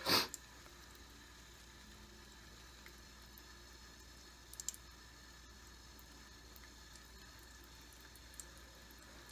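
Faint room tone with a short breathy noise at the very start and a few faint small ticks about halfway through.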